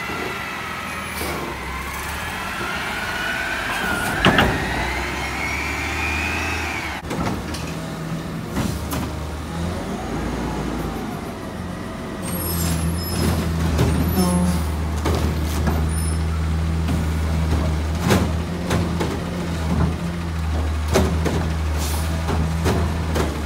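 Front-loading garbage trucks with Curotto Can automated cart arms at work. First comes a hydraulic whine that wavers and rises in pitch for several seconds and then stops. Later a diesel engine runs louder and steadily to power the arm, with sharp knocks and clanks as a cart is lifted and dumped.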